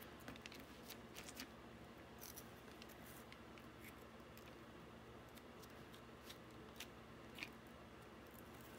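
Faint, scattered light taps and rustles of hands handling a rubber-band-wrapped cardboard stamp and pressing it onto a piece of cardboard, over a quiet room hum.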